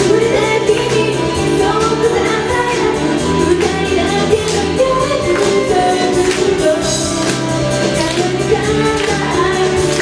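A woman singing a song live into a microphone over backing music with a steady beat.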